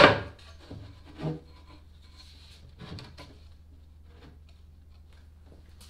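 A plywood panel knocked down onto a plywood console box and shifted into place: one sharp wooden knock at the start, a lighter one about a second later, then a few faint taps and rubs of wood on wood.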